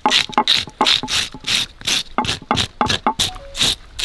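A knife blade scraping the scales off a large trevally in quick, rhythmic strokes, about four to five a second, each stroke a short rasping hiss with the odd faint squeak.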